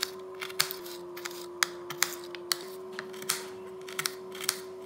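Kitchen knife slicing a red onion on a ceramic plate, the blade clicking against the plate with each cut: about a dozen sharp, irregular clicks, two or three a second.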